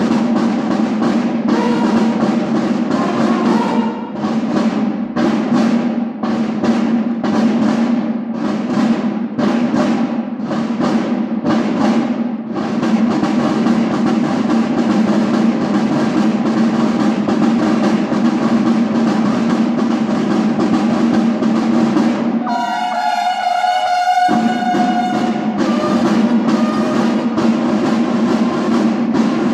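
School drum-and-bugle corps playing a march: snare drums keep up a steady rhythmic beat under sustained bugle notes. About 22 seconds in the drumming stops for under two seconds while a single bugle note sounds alone, then the full corps comes back in.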